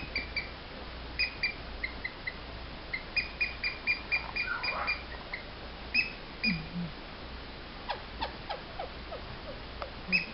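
A squeaky dog toy squeezed over and over: short high squeaks, some single and some in quick runs, with a fast run of about eight a little past the middle.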